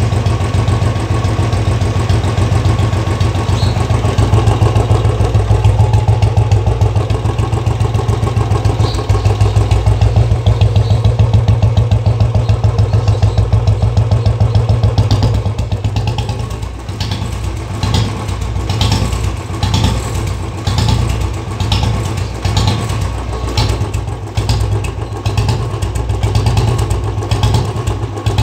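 Royal Enfield Bullet Standard 350's single-cylinder engine running through a Mini Punjab aftermarket silencer, giving the steady 'dug dug' thump of the exhaust. About halfway in, the beat turns uneven, rising and falling, with sharper cracks in it.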